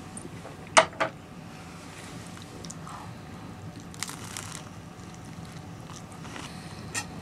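Crunchy bites into toast and chewing close to the microphone, with the main crunch about four seconds in. Two sharp clicks about a second in are the loudest sounds.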